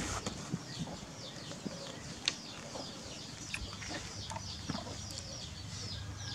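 Small birds chirping in the background: many short, high, falling chirps in quick succession, with a couple of sharp knocks, one a little over two seconds in.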